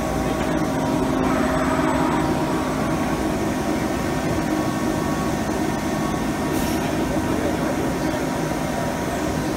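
Steady machinery hum with faint steady tones underneath, slightly louder in the first couple of seconds, and a short high hiss about two-thirds of the way in.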